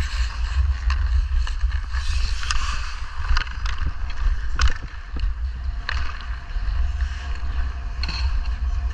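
Hockey skate blades scraping and carving on outdoor rink ice, with wind rumbling on a body-worn camera's microphone. Several sharp clicks of a stick on the puck, the loudest about halfway through.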